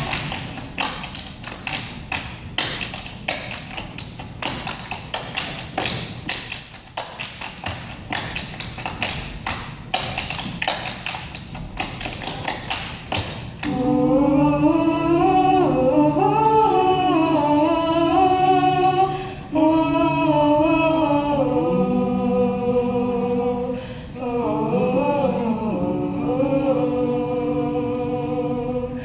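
An a cappella quartet keeping a fast, steady beat with body percussion, claps and pats with no singing. About halfway through the percussion stops and the four voices come in together, holding and sliding between wordless chords in close harmony.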